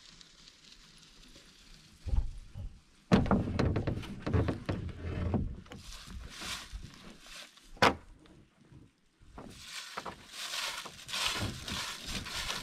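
Close knocks and rustling as the carried canoe and gear shift on the shoulders, with a sharp click near the middle. From about two-thirds of the way in, footsteps crunching through dry fallen leaves.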